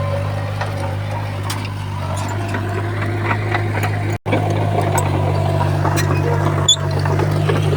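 Crawler bulldozer's diesel engine running steadily with a low drone, with scattered light clanks. The sound cuts out completely for an instant about four seconds in.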